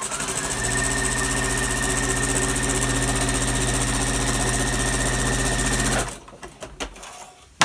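Electric sewing machine stitching: the motor speeds up to a steady run with a fast, even needle rhythm and a held whine, then stops abruptly about six seconds in. A few small clicks follow, with one sharp click near the end.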